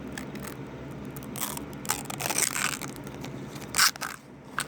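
Handling noise: packaging rustling and scraping in a few short bursts, with a sharp click about four seconds in.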